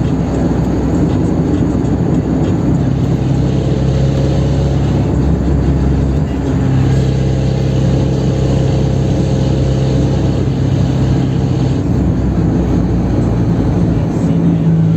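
Chevrolet Kadett 1.8 four-cylinder engine running steadily under load at high road speed, mixed with road and wind noise. Its pitch shifts slightly about six seconds in.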